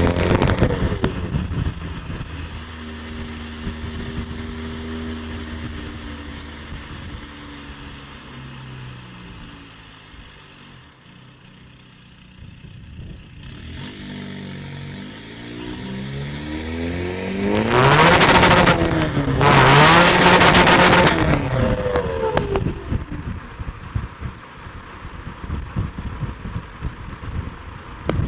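Tuned 2.0-litre common-rail diesel engine of a Skoda Fabia with a Garrett GTB2260VK turbo, revving up and down. The revs fall away at the start, hold steady, then sink to a low point. They climb again into two loud high-rev pulls about two-thirds of the way through, with a strong rushing noise over the engine, and then drop back.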